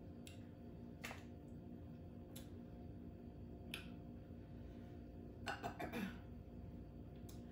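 Quiet eating sounds while peeling and chewing seafood: a handful of short, separate mouth clicks and smacks, with a brief cluster of them about five and a half seconds in, over a low steady hum.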